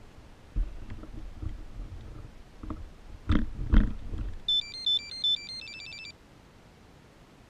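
A short electronic beep tune: tones alternating between two pitches, then a quick run of short beeps. Just before it there is low rumbling with two loud knocks.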